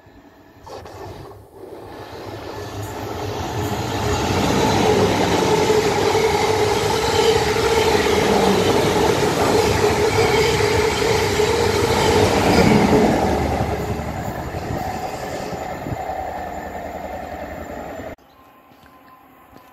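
South Western Railway electric multiple-unit train running along the platform: a rumble of wheels on rail with a steady whine that builds, holds, then fades. The sound cuts off abruptly near the end.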